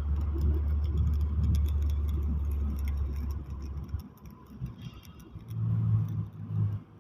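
A steady low machine hum that cuts off about four seconds in. A few seconds later a higher, intermittent hum comes and goes.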